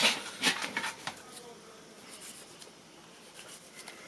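A few sharp knocks and clatters of plastic basins and a kitchen knife being handled in the first second. After that it goes quiet, with faint scattered clicks as a tomato held in the hand is sliced with the knife.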